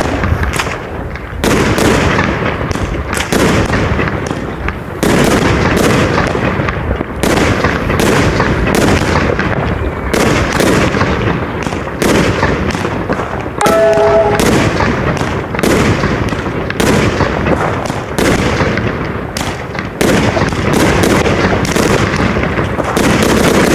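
Consumer fireworks cakes firing a rapid, continuous volley of bangs, about two or three shots a second with no pause, and a brief pitched tone about 14 seconds in.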